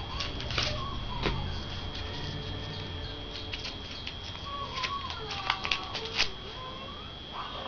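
Clicks and crinkling of an Orbit gum pack being handled as a piece of gum is worked out of it, with a cluster of sharper clicks about five to six seconds in. A faint wavering whine comes and goes underneath.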